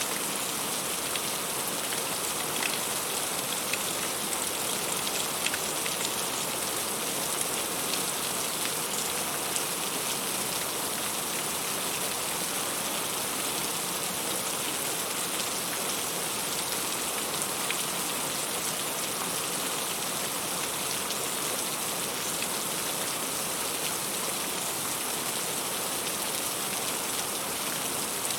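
Heavy rain falling steadily: a dense, even hiss with scattered individual drops ticking through it.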